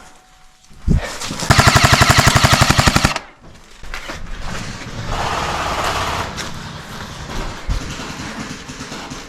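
Airsoft rifle firing a rapid full-auto burst of about a second and a half, evenly spaced sharp cracks. A single knock comes just before it, and quieter shuffling and rustling follows.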